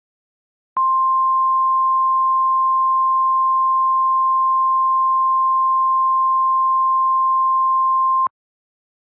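NOAA Weather Radio warning alarm tone: a single steady high-pitched tone held for about seven and a half seconds. It starts about a second in and cuts off abruptly. The tone announces that a warning message follows.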